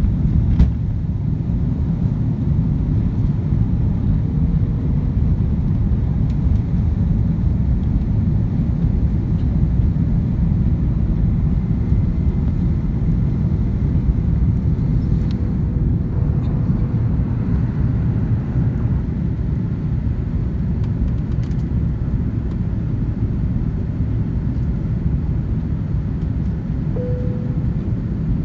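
Airbus A330-200 cabin noise on the approach to landing, heard from a window seat over the wing: a steady low rumble of the engines and the airflow past the airframe. A short click comes about half a second in.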